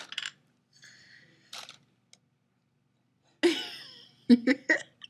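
A woman's brief wordless vocal outburst about three and a half seconds in: a falling voiced sound, then three quick breathy pulses. Before it, a few light clicks and a short rustle from handling the lens.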